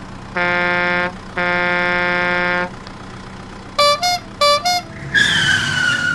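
Cartoon vehicle horn sound effects: a low horn honks twice, once briefly and then held longer, followed about four seconds in by four quick higher-pitched beeps and then a whistling tone that slowly falls in pitch.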